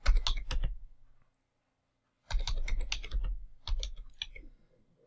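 Typing on a computer keyboard: a short run of keystrokes at the start, a pause of about a second, then a longer run of quick keystrokes.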